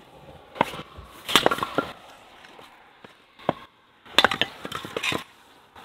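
Kindling being split: a run of sharp chopping knocks and splitting cracks, about five irregularly spaced strikes, some followed by quick splintering.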